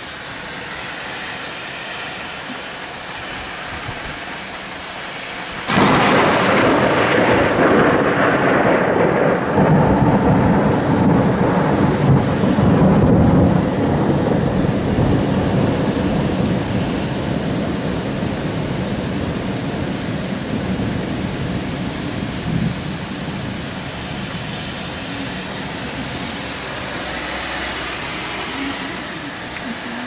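Steady rain splattering on wet pavement; about six seconds in a sudden clap of thunder breaks and rolls into a long, deep rumble that fades slowly over the next twenty seconds.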